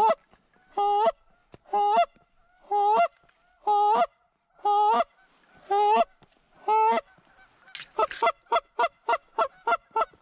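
Hand-blown goose call: a string of long two-note honks, each breaking upward in pitch, about one a second, then near the end a fast run of clucks, about five a second. It is calling to a small flock of Canada geese overhead to bring them in to land.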